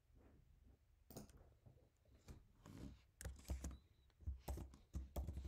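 Computer keyboard typing and clicks, heard faintly as a scatter of separate taps beginning about a second in and coming more often toward the end.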